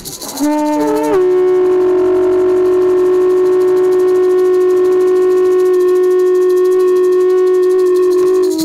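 A long, steady held note from a horn-like wind instrument. It slides up in pitch about a second in and is held for about seven seconds.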